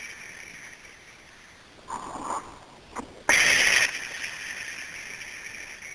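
A person's noisy breathing: a short breathy sniff about two seconds in, a faint click, then a louder hissing breath about half a second long.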